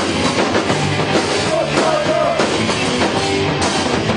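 Punk hardcore band playing loud and fast, a drum kit driving under a shouted male vocal.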